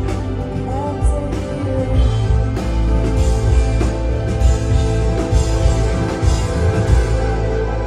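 Live rock band playing electric guitars, bass and drum kit through a concert PA, heard from the audience, with a heavy steady bass and regular drum hits.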